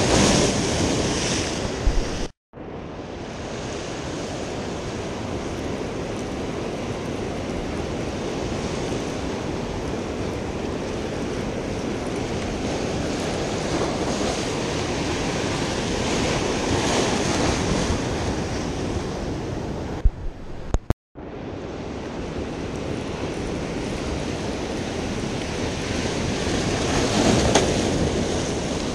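Ocean surf breaking against a rock jetty, a steady wash that swells and fades. The sound cuts out completely for a moment twice, about two seconds in and about 21 seconds in.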